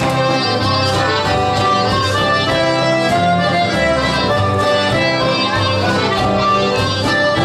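Traditional folk dance music playing a schottische, with a steady, regular bass beat under the melody.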